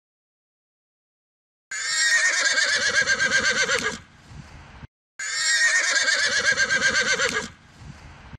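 Horse whinnying: the same long neigh is heard twice, starting about a second and a half in. Each neigh has a quavering pitch, lasts a bit over two seconds and ends in a softer breathy trail.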